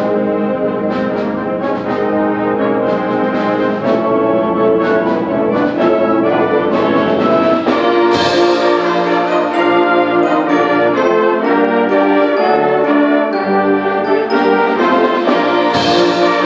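High school symphonic band playing a brass-led piece, trombones and horns holding full chords over short percussion strikes, with a loud crash about halfway through and another near the end.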